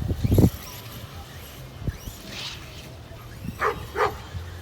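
A dog giving two short, yipping barks about half a second apart near the end, with a couple of low knocks just at the start.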